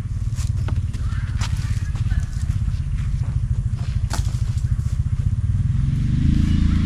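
An engine running steadily with fast, even firing pulses, revving up in pitch near the end. A few light clicks and knocks are heard over it.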